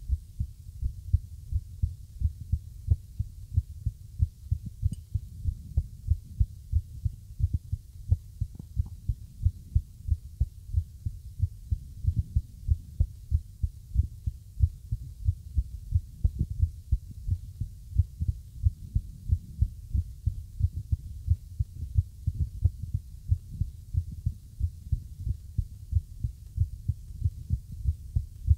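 A heartbeat recorded close up: low thuds, about three a second. The uploader presents it as an irregular heartbeat.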